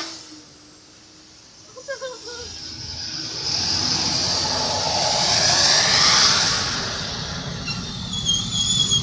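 A bus passing by on the road: its engine and tyre noise swells to a peak about six seconds in, then fades away.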